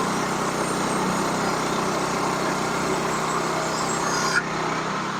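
Sawmill running steadily under power as it saws through a log, a steady engine hum under a high hiss. About four seconds in a sharp click is heard, and the high hiss cuts off.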